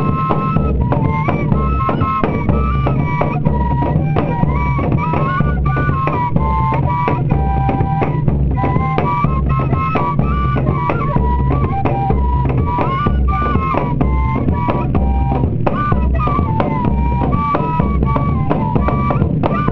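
Pífano (Brazilian cane fife) playing a stepping melody over a steady beat of bass drum and snare, the sound of a northeastern banda de pífanos.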